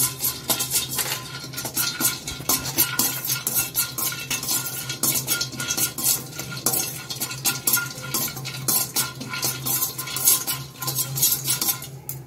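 Metal spoon stirring and scraping chopped almonds around a stainless steel kadai, a quick run of clinks and scrapes against the pan, over a steady low hum.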